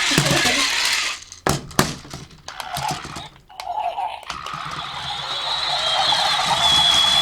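Plastic remote-control creature toys on a tabletop: a few sharp knocks and clatters, then a rising motor whir with a high steady whine near the end.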